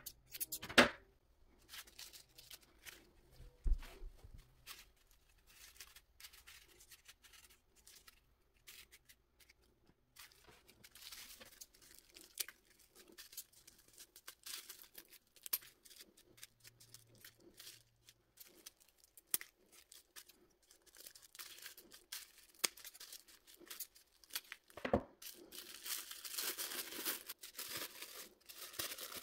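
Folded tissue paper being worked by hand: a sharp knock about a second in, then scissors snipping the ends of the folded tissue stack in many short crisp cuts, and near the end the thin tissue sheets rustling and crinkling as they are pulled apart.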